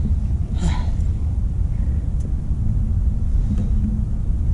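Wind buffeting the camera's microphone: a steady low rumble, with one brief higher noise under a second in.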